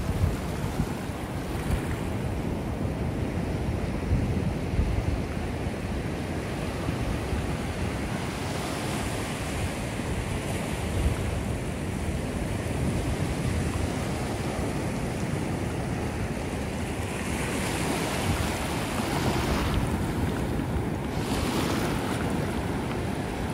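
Ocean surf breaking and washing up a beach, with wind buffeting the microphone. The hiss of the wash swells up twice, about a third of the way in and again near the end.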